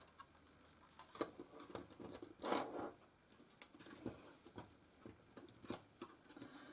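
Faint clicks and scrapes of small plastic parts being handled and prised on a Panasonic SDR-S50 camcorder's casing as a cover is worked off, with a louder scrape about two and a half seconds in.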